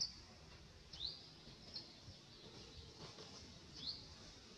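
A bird calling faintly in short, high, rising chirps, four of them about a second apart, over a low outdoor background hiss.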